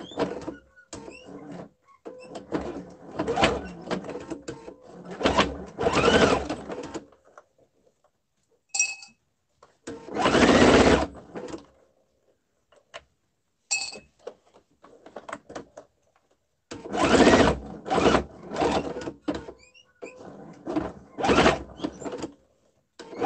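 Domestic electric sewing machine stitching a quarter-inch seam around a quilted bowl cover in several short runs, stopping and starting between them. The thick layers strain the needle nearly to breaking.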